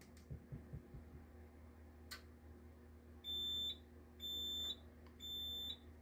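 Siemens MXLV fire alarm control panel being reset: a sharp click, then three evenly spaced high beeps of about half a second each as the system resets.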